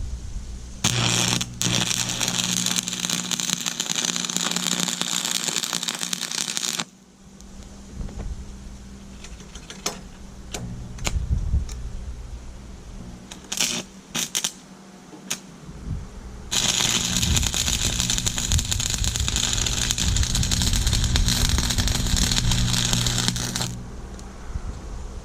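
AC stick welder (buzz box) running two welds on the steel carriage frame: the arc crackles steadily for about six seconds, stops, and after a pause with a few sharp taps crackles again for about seven seconds over the welder's steady low hum.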